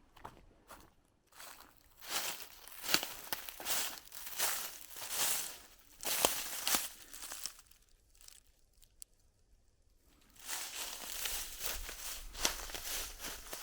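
Footsteps crunching and rustling through dry leaves on the forest floor, a step about every second, stopping for about two seconds in the middle and then going on.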